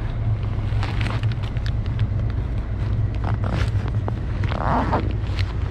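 Steady low wind rumble on the microphone, mixed with street traffic noise. A few short clicks run through it, with a brief rustle about five seconds in.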